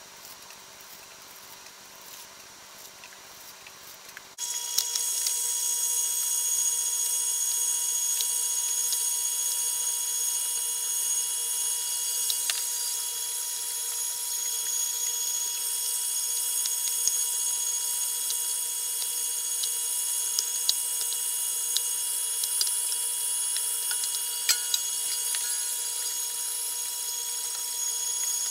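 Cabela's Commercial-Grade 1 HP Carnivore electric meat grinder running steadily with a whine and occasional small clicks, pushing a venison and pork blend through the coarse grinding plate. It starts abruptly about four seconds in, after a quieter start.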